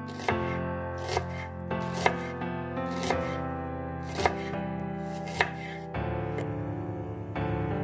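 A ceramic knife slicing an onion on a wooden chopping board, each cut ending in a sharp knock on the board, about once a second, stopping about six seconds in. Instrumental music plays underneath.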